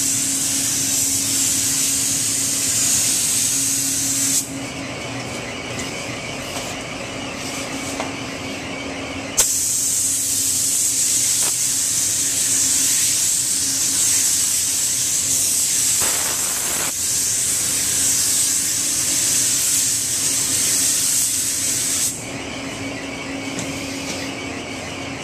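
Gravity-feed spray gun hissing as compressed air atomises paint onto a boat hull. The gun is triggered in long passes: it stops about four seconds in, starts again sharply a few seconds later for about twelve seconds, and stops near the end. A steady low hum runs underneath.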